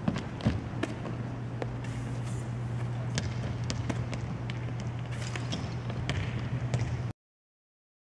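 Volleyballs being set and bouncing on a hardwood gym floor: irregular sharp knocks over a steady low hum. The sound cuts off to silence about seven seconds in.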